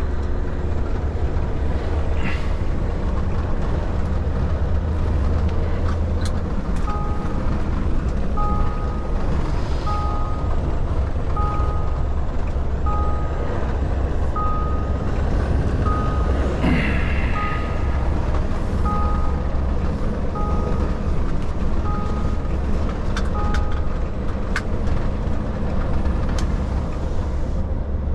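Truck's diesel engine running steadily with a deep hum, heard from the cab. From about seven seconds in, an electronic two-tone beep repeats about every second and a half, around a dozen times, then stops; a short hiss comes about halfway through.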